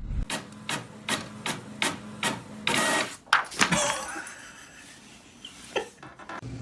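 A run of six sharp, evenly spaced clicks, about two and a half a second, followed by a short clatter and a few scattered clicks.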